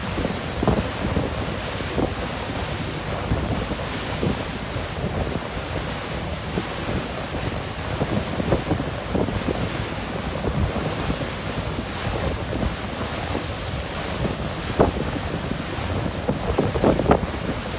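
Wind buffeting the microphone in uneven gusts on the deck of a moving boat, over a steady rush of wind and sea water.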